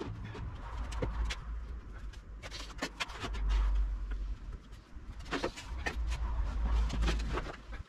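Scattered knocks and clunks of timber and a cordless drill being handled and set down on a wooden workbench, over a low rumble that swells twice.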